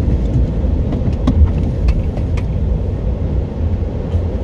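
Car driving at low speed, heard from inside the cabin: a steady low rumble of engine and road noise, with a few short clicks scattered through it.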